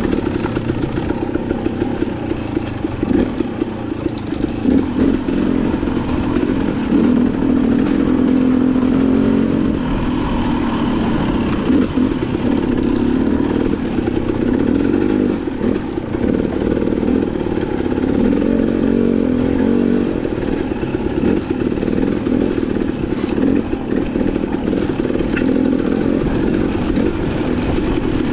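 Dirt bike engine running at low revs on a trail ride, its note rising and falling with the throttle, with a few short knocks over the rough ground.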